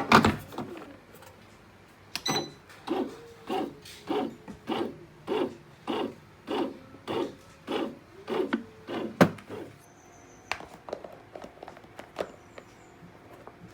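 A steady series of knocks, about one every 0.6 s, followed by one louder knock and a few lighter taps.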